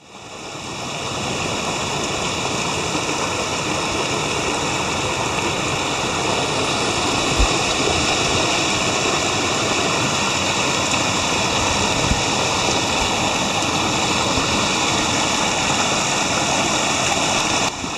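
Rocky mountain creek rushing and splashing over boulders in small cascades, a steady rushing that swells in over the first second or so and then holds level.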